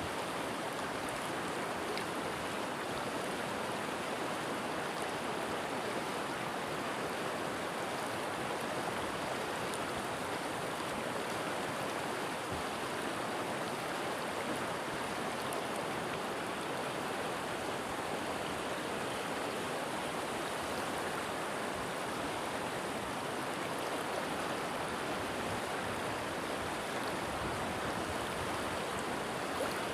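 River water flowing over stones, a steady, even rushing.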